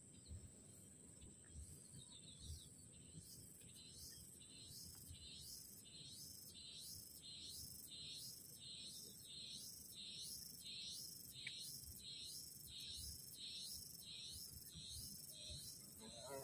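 Faint insect chorus pulsing about twice a second, with a steady high-pitched tone behind it and a low hum of wind.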